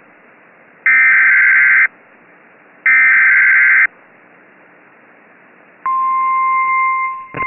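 Emergency Alert System SAME digital header bursts: two harsh, buzzy data bursts about a second long, two seconds apart. About six seconds in, a steady, single-pitched weather-radio warning alarm tone starts.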